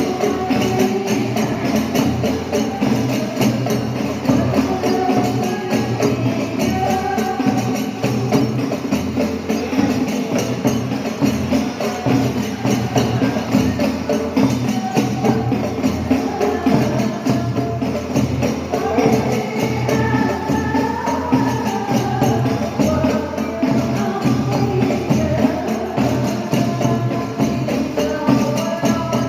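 Hadrah ensemble performing: rebana frame drums keep a steady, dense rhythm while a group of women sing a sholawat together.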